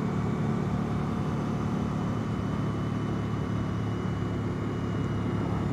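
2014 Suzuki V-Strom 1000 motorcycle's V-twin engine running steadily while cruising at an even speed.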